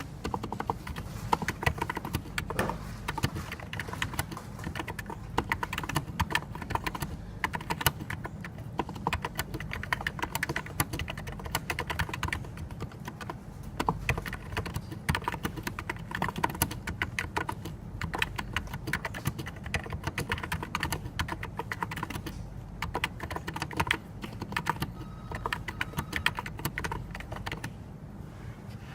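Typing on a NiZ Plum 84 keyboard with Topre-style electro-capacitive switches: a steady, continuous stream of key strokes.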